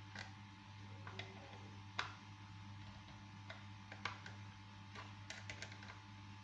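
Steady low electrical hum under irregular small clicks and taps. The loudest click comes about two seconds in, and a quick run of clicks follows a little after five seconds.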